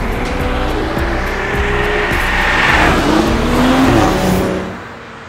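A performance car's engine accelerating hard, its pitch climbing several times as it pulls through the gears, over background music. It fades out near the end.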